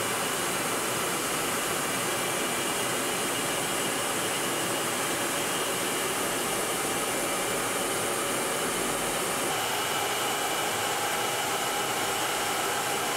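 Steady rushing roar of jet aircraft in flight, heard from aboard a chase aircraft, with a faint high whine held through it.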